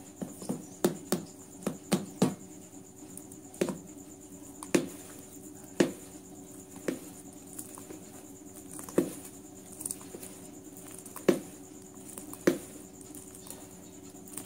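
A steel spoon stirring thick fermented rice-and-urad dal batter in a ceramic bowl, clinking against the bowl at irregular intervals about once a second, with a faint steady hum underneath.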